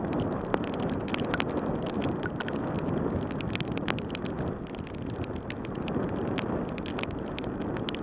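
Bicycle riding on a wet road in rain: steady rushing wind noise on the microphone mixed with tyre hiss from the wet pavement, with scattered sharp ticks and taps.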